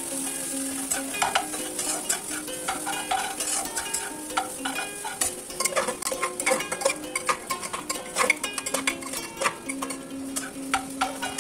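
Wooden spatula stirring and scraping food in a metal pot on a gas stove, with frequent irregular clicks and knocks against the pot over a steady frying sizzle.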